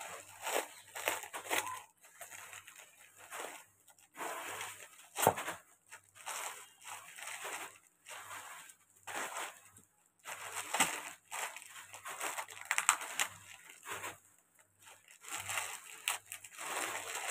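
Clear plastic cling wrap crinkling and rustling in irregular bursts as it is handled and pulled off a foot file and manicure tools, with a few sharp clicks.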